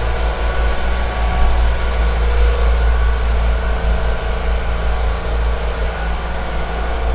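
Boat's inboard diesel engine running steadily, a deep drone with a constant hum, heard from inside its machinery room.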